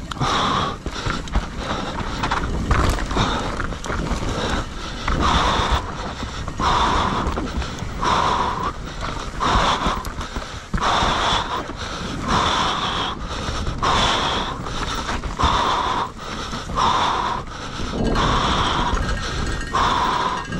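Enduro mountain-bike rider panting hard, a loud breath about every second and a half, over knocks and rattle from the bike on rough trail.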